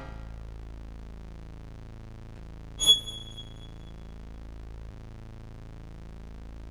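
A low, steady soundtrack drone. About three seconds in, a sudden loud, high-pitched ringing sting cuts in and fades over about a second.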